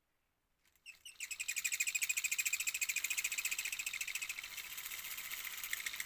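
High-pitched chirping in a fast, even pulse of about ten chirps a second, starting about a second in and easing off a little in the second half.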